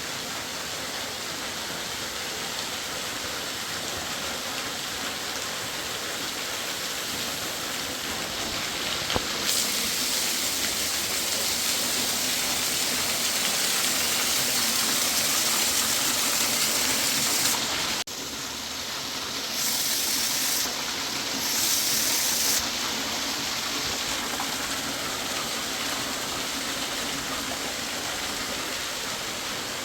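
Rushing water of a fast mountain river, a steady hiss. It grows louder and brighter about a third of the way in, drops abruptly just past halfway, then swells briefly twice.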